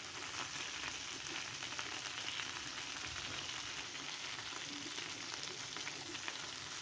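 Chicken pieces frying in oil and butter in a pan, a steady sizzling crackle, as they are browned until crispy.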